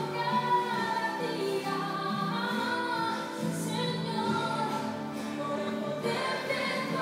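Music with a choir singing, sustained voices moving through a slow melody.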